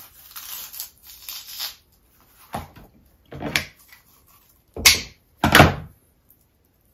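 Fillet knife and kitchen shears working a perch on a plastic cutting board: a brief rasping scrape, then four sharp snips and clacks, the last two the loudest.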